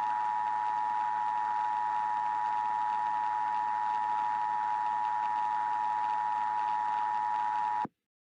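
Emergency Alert System attention signal: a steady two-tone alarm held unchanged over a hiss of static, cutting off suddenly near the end.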